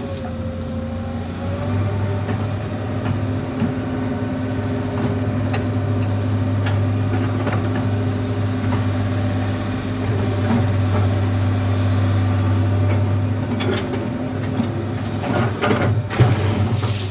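Komatsu PC200 excavator's diesel engine running steadily under work, with scattered knocks and clanks; the loudest come near the end.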